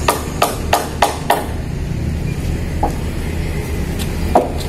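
Hammer striking timber while a wooden roof truss is nailed together: a quick run of about five blows in the first second and a half, then two single blows later, over a steady low rumble.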